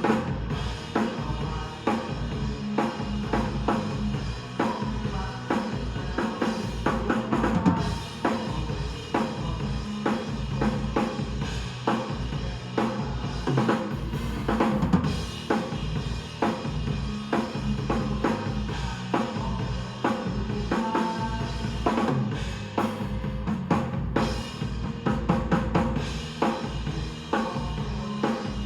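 Drum kit played in a steady groove: kick drum, snare with rimshots, and cymbals hitting continuously, with pitched backing music underneath.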